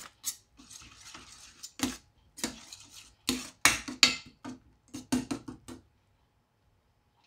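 Stirring spoon scraping and knocking against a stainless steel pot as mashed star gooseberry pulp cooks down in sugar syrup, in a quick irregular run of strokes that stops near the end.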